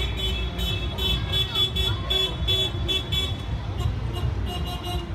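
Taxi horns sounding in a fast run of short, high beeps, about three a second, over the low running of the taxis' engines as they move slowly in procession.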